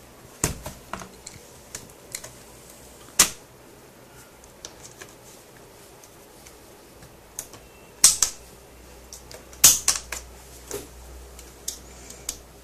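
Irregular sharp plastic clicks and snaps as a screwdriver pries the HP Pavilion DV6 laptop's top panel away from its base, the case's plastic clips letting go. The loudest snaps come about three seconds in and again around eight and ten seconds.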